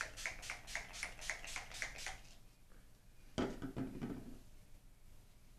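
Makeup setting spray's pump-mist bottle spritzed rapidly, about four short hissing sprays a second, stopping a little over two seconds in. A single louder knock follows about a second later.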